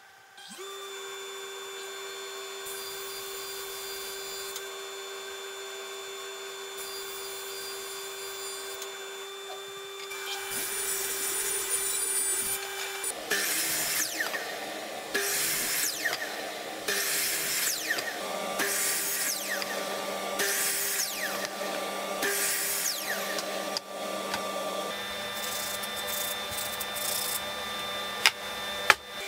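Power saws cutting Douglas fir framing lumber into blocks: first a steady machine hum with a cut starting about ten seconds in, then a miter saw chopping the wood again and again, about one cut every second and a half, each with a high falling whine.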